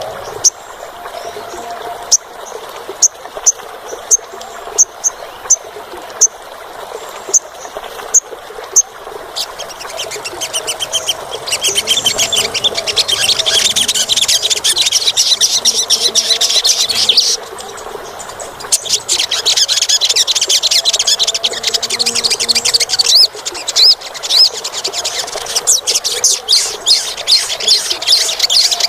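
Olive-backed sunbird calling and singing: sharp, high single chirps repeated one to two a second, then from about ten seconds in a fast, shrill twittering song that breaks off briefly past the middle and starts again.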